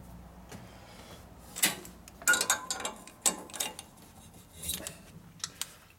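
Hands working parts at an aluminium shovelhead cylinder head: a handful of short metal scrapes, rubs and clinks at irregular spacing over a low shop hum.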